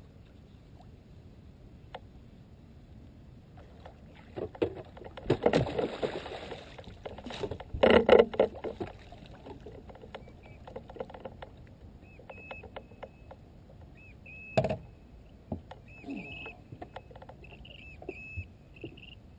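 A large hooked fish splashing at the surface as it is netted beside a boat, the loudest splashes about eight seconds in. A hard knock on the boat deck follows later, with a few short, high, rising chirps near the end.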